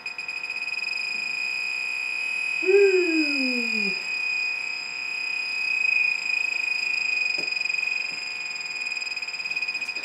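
Electronic combustible gas leak detector (Bacharach Informant) alarming with a steady, rapidly pulsing high-pitched tone: it has picked up combustibles at the furnace gas valve inlet, which the technician suspects could be either a gas leak or pipe dope. About three seconds in, a short sound slides downward in pitch.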